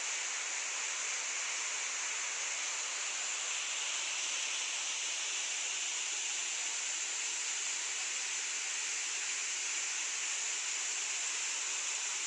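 Waterfall plunging into a deep rock gorge, heard from above as a steady rushing of water.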